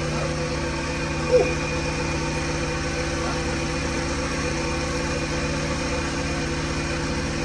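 An old two-stroke Sea-Doo jet ski engine idling steadily on its trailer out of the water, with one brief sharp clack about a second in.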